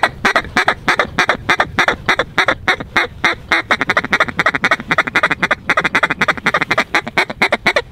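Hand-held duck call blown in a fast, unbroken run of short quacking notes, about seven or eight a second.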